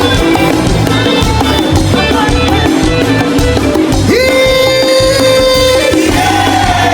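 Upbeat music with a steady beat. About four seconds in, a high note slides up, is held for about two seconds, then slides back down.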